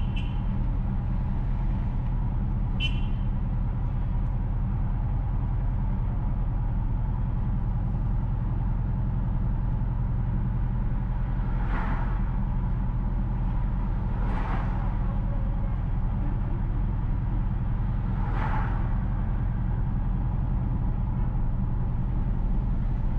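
Steady drone of a car's engine and road noise heard from inside the moving car, with three brief whooshes in the second half.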